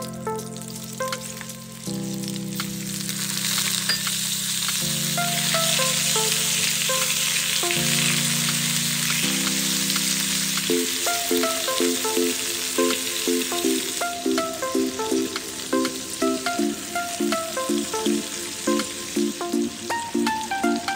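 Food sizzling as it fries in hot mustard oil in a pan, a steady hiss that builds up about two seconds in, under background music.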